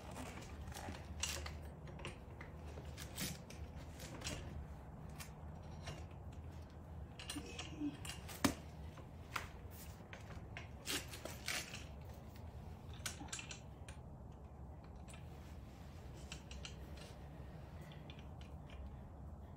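Scattered light metallic clicks and knocks as a unicycle's handlebar and its release clamp are taken off and fitted back on, with one sharper click about eight and a half seconds in, over a low steady hum.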